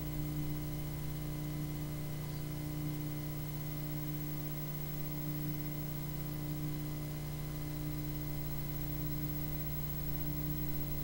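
Steady low electrical hum with a faint hiss, unchanging throughout: background noise of the room and its sound system while no one speaks.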